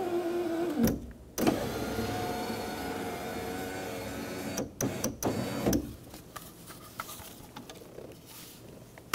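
Subaru Forester front power window motor and regulator running the glass, being tested after installation: a steady motor hum stops with a knock about a second in, then runs again for about three seconds. It ends with a few sharp clicks, followed by faint handling noise.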